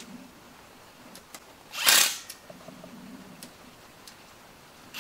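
Ingersoll Rand cordless brushless impact on a raised power setting, running one short burst about two seconds in as it torques an oil pan bolt, with a few faint clicks around it.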